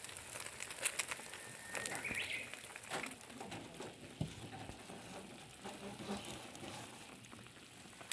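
A small songbird sings once about two seconds in, a held whistled note ending in a quick rising flourish, over scattered sharp clicks and a light crackling patter.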